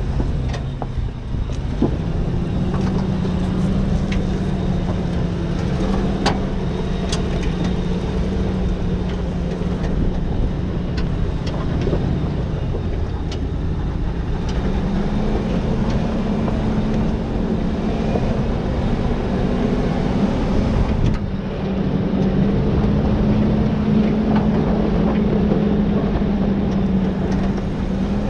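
Toyota Land Cruiser 100 series engine pulling steadily under load as the truck climbs a steep dirt track, with tyre and road noise beneath. The engine note steps up a little about halfway through, and a few sharp clicks are scattered through the first half.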